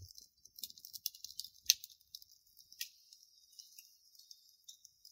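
Wood and charcoal fire crackling, with irregular sharp pops over a faint steady hiss; the loudest pop comes about a second and a half in. A dull low thump sounds right at the start.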